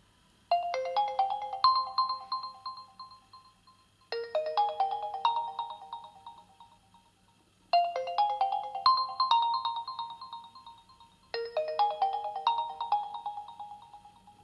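OPPO A91 ringtone: a short melody of quick, bright notes that ring on and fade, played four times, a new phrase starting about every three and a half seconds.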